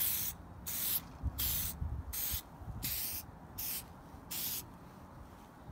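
Aerosol spray can hissing in seven short bursts, about one every two-thirds of a second, as a coat is sprayed onto a polished headlight lens. The bursts stop about four and a half seconds in.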